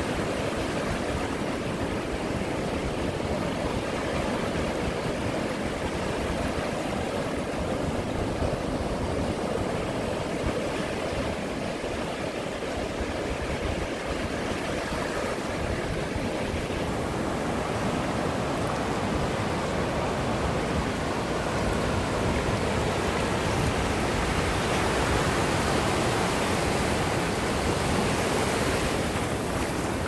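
Ocean surf washing onto a beach in a continuous rush of waves. It swells louder about two-thirds of the way through and eases slightly near the end.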